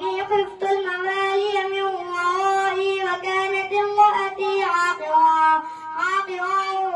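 A boy's voice reciting the Quran in the melodic tajweed style (tilawat), drawing out long held notes that bend slowly up and down, with short breaks between phrases.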